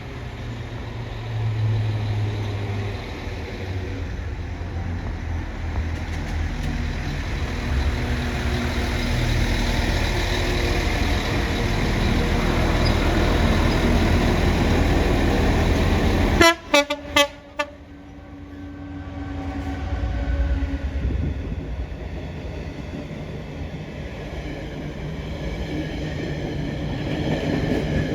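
Diesel trains running, with a steady low engine rumble and wheel noise that grows louder. About sixteen seconds in, a train horn gives three short blasts.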